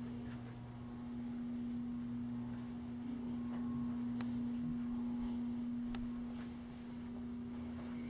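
Several running ceiling fans, their motors giving a steady electric hum, with two light clicks in the second half.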